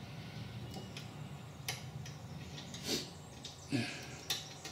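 A few light metallic clicks and taps as the nut and small washer are worked off the bolt of a Greenfield ride-on mower's cutter-belt tension pulley by hand, the loudest about three seconds in and again a moment later.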